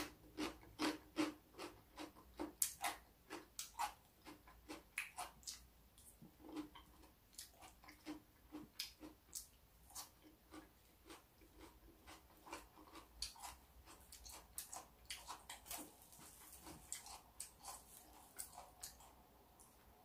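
Close-up crunching of a person chewing raw cucumber and salad vegetables, short crisp crunches about twice a second.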